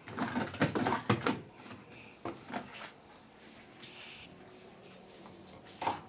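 Plastic detergent dispenser drawer of an LG front-loading washing machine being pulled out of its housing. It clatters and knocks for the first second and a half, then gives a few lighter knocks.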